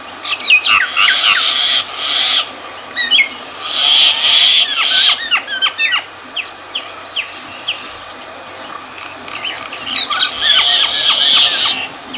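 Myna calling in three loud bouts of harsh, grating chatter mixed with quick falling whistled notes, with scattered single notes between the bouts.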